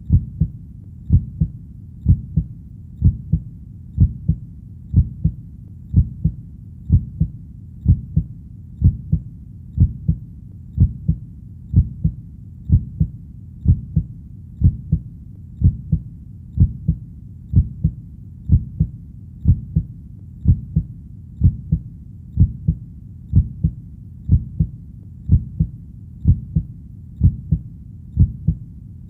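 Heartbeat: steady paired low thuds, lub-dub, at about one beat a second, over a faint low rumble.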